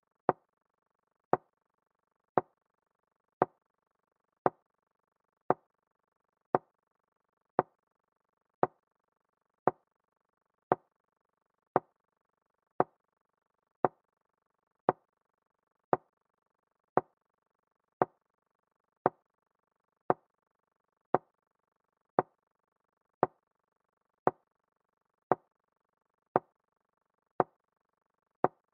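Chess move sound effect: a short wooden knock of a piece set down, repeating evenly about once a second, one for each move as the game is played out.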